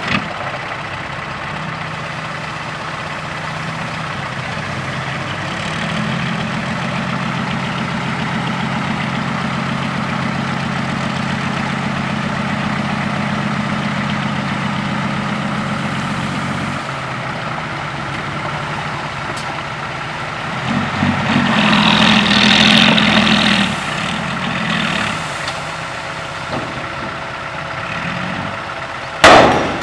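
Six-wheel dump truck's diesel engine running, sped up and held steady for about ten seconds while the hydraulic hoist raises the bed. A rushing surge of noise about two-thirds through as the load of soil slides out, and a loud clang near the end.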